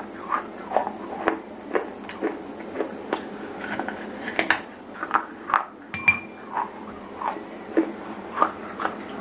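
Close-miked chewing of hard, dry pieces of terracotta diya (baked-clay lamp): a steady run of crisp crunches, about two a second.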